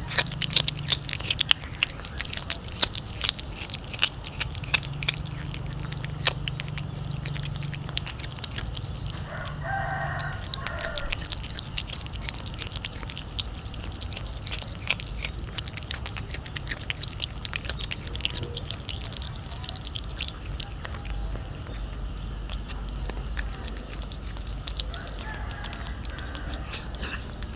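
A cat chewing and biting into a raw fish: a steady run of wet, crunchy clicks, thickest in the first several seconds. A short pitched animal call sounds faintly in the background about ten seconds in.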